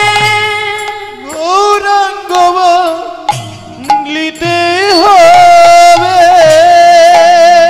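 Bengali kirtan music: a melody sung in long, held notes that glide and waver, over drum accompaniment.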